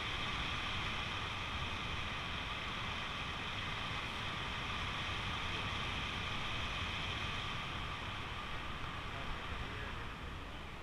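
Steady wind noise from the airflow of paraglider flight buffeting the camera's microphone, with a faint steady whistle, easing slightly near the end.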